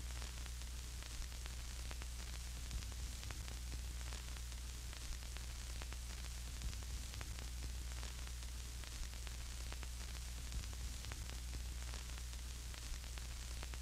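Steady static hiss over a low hum, with scattered faint crackles and clicks.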